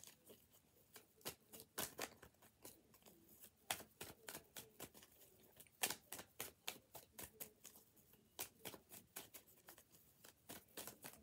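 Tarot cards being shuffled and handled: faint, irregular snaps and clicks of cards, a few each second.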